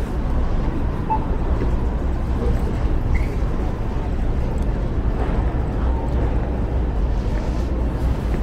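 City street ambience: a steady low rumble of traffic with faint murmur of passers-by.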